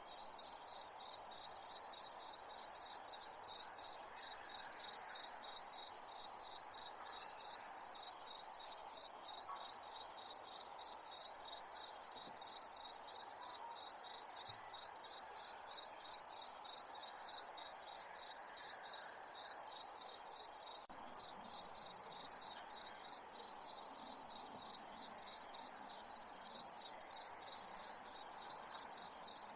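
Crickets chirping at night, a steady high-pitched trill pulsing about four or five times a second without a break.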